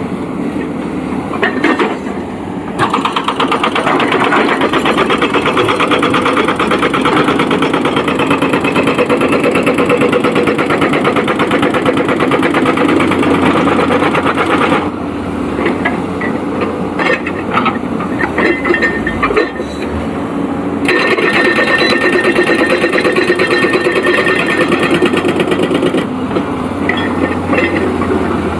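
Excavator's diesel engine running with a fast, even pulse, rising under hydraulic load for two long stretches, the first from about 3 to 15 seconds in and the second from about 21 to 26 seconds in, and dropping back lower in between.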